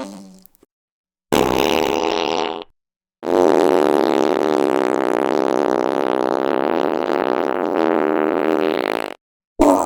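Fart sound effects, one after another with short silent gaps. The tail of one fades out at the start, a short fart comes about a second in, then one long, steady fart lasts about six seconds, and another begins right at the end.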